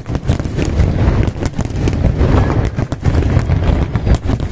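Fireworks display: rapid, overlapping bangs and crackles over a continuous low rumble.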